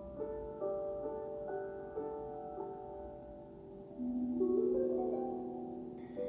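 Instrumental background music: a slow melody of single ringing notes, with a rising run of notes about four seconds in.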